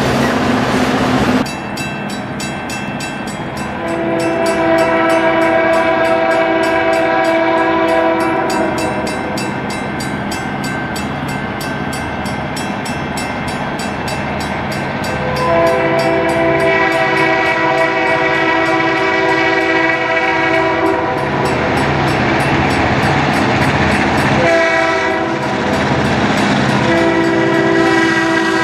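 For the first second and a half, loaded freight cars roll past. Then a diesel freight locomotive sounds its chime horn in the grade-crossing pattern of two long blasts, a short one and a long one, as it approaches the crossing. A crossing bell rings steadily under the horn.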